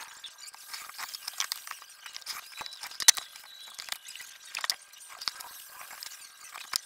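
Scattered small clicks, taps and scrapes of hand work with a knife and a steel square while cutting leather strips on a plywood board; the sharpest click comes about three seconds in.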